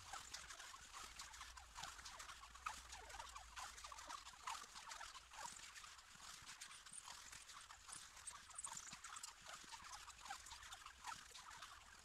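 Plastic cling film peeling off its roll as it is stretched round tree trunks, giving a faint, irregular crackling with a few thin high squeaks.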